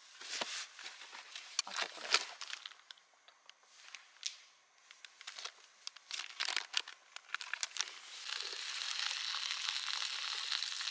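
Rustling and clicking as camp cooking gear is handled and taken out of a plastic case. About eight seconds in, a steady sizzle of Jingisukan lamb frying over a gas camp burner takes over.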